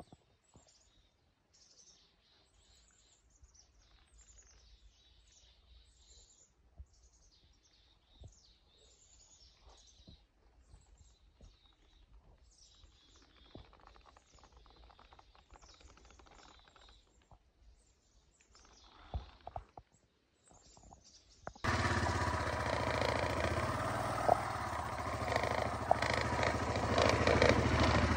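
Small birds chirping faintly over quiet woodland, with a few soft handling knocks. About 22 seconds in, a four-wheeler (ATV) engine comes in abruptly, idling steadily and much louder.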